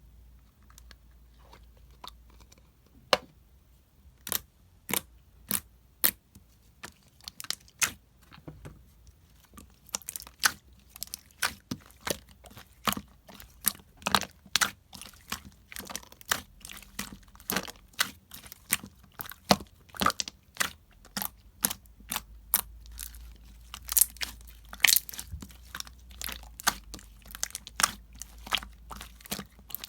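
Irregular sharp crackles and crunching clicks, sparse at first and coming thick and fast from about ten seconds in.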